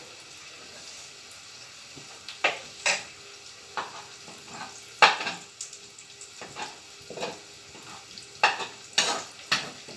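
Onions frying in a pan with a soft, steady sizzle. From about two seconds in, it is broken by about ten sharp clinks and knocks of kitchen utensils and containers being handled.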